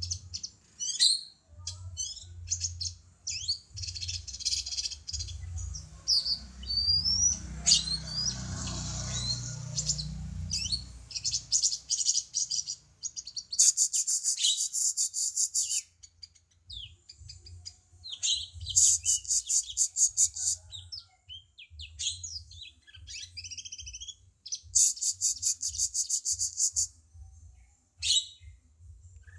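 Cungko songbird singing: quick high chirps and short whistled notes, broken by three long, rapid buzzy trills, the first about halfway through, the next two a few seconds apart later on.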